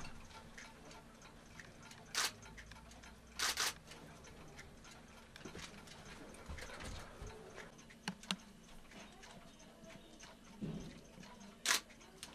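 Clocks ticking faintly and steadily in a watch repair shop, with a few sharper clicks and a short scrape from fine metal tools working on a watch.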